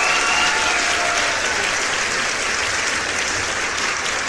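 A room full of people applauding steadily, the clapping easing slightly toward the end.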